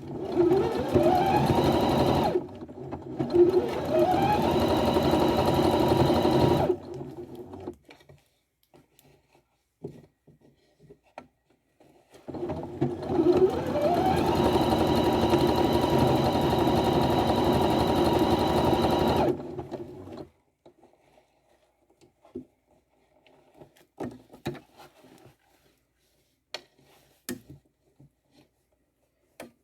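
Electric sewing machine stitching hair wefts onto a wig cap in two long runs, each beginning with a rising whine as the motor speeds up and then holding steady; the first run stops briefly and restarts. For the last third only small handling clicks are heard.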